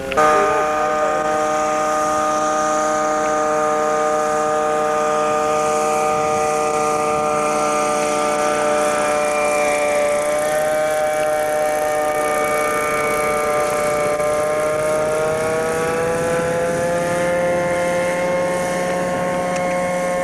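The Paracoupe ultralight's Kawasaki 340cc two-stroke engine and propeller run with a steady, buzzing drone as the plane flies low overhead. The engine note dips a little about halfway through and rises again over the last few seconds.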